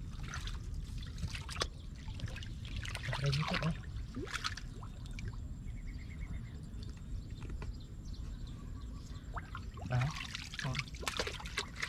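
Water splashing and trickling in irregular bursts, as if being scooped or poured.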